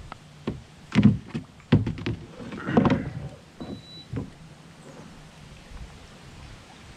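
A run of sharp knocks and bumps against a plastic fishing kayak, loudest about one, two and three seconds in, with a short high beep near the middle.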